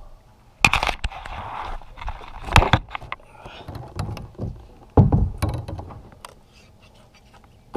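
Hollow knocks and thumps on a plastic kayak's hull as gear and a landed fish are handled: three sharp ones about two seconds apart, with a spell of rustling after the first.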